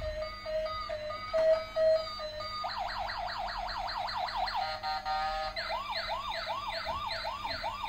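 Battery-operated light-up toy car playing its electronic siren: a repeating beep for the first couple of seconds, then a fast up-and-down yelp, which changes into a slower rising-and-falling wail.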